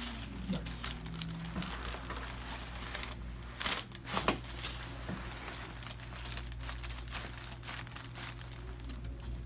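Crinkling and rustling of the paper cover on a chiropractic treatment table as the patient is positioned and adjusted, with a couple of sharper clicks about four seconds in. A steady low hum runs underneath.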